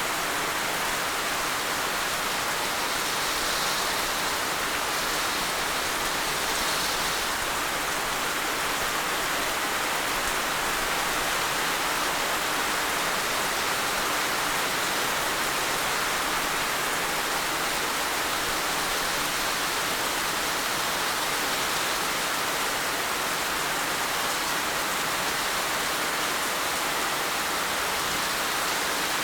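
Heavy rain falling steadily, a dense even hiss without distinct drops or thunder.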